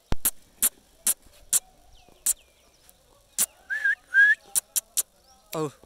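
A person calling a dog with a string of sharp tongue clicks, roughly two a second, and two short whistles a little past the middle; a short call falling in pitch comes near the end.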